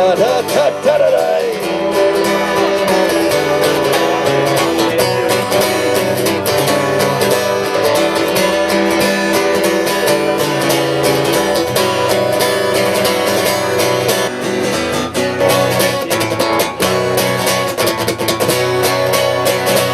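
Acoustic guitar strummed in steady chords, an instrumental passage of a song played live.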